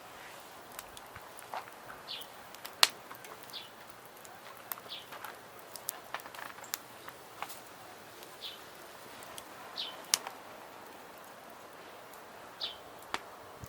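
A bird repeating a short high call every second or two, with scattered sharp clicks and snaps around it; the loudest snap comes about three seconds in.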